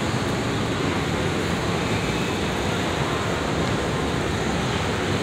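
Steady, even background roar of a large exhibition hall, with no single sound standing out.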